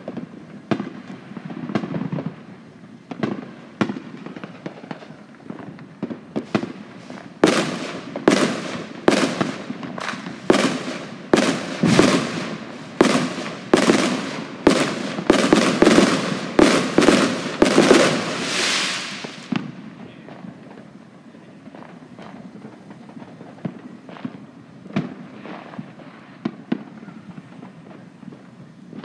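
Fireworks going off: scattered bangs at first, then from about seven seconds in a fast barrage of loud bangs, about two a second, lasting some twelve seconds and ending in a crackling hiss, after which only occasional fainter pops remain.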